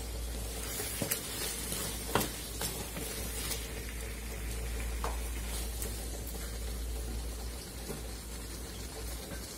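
Beef pieces and onions frying and sizzling in oil in a karahi while a spatula stirs them. A few sharp clicks of the spatula against the pan, the loudest about two seconds in.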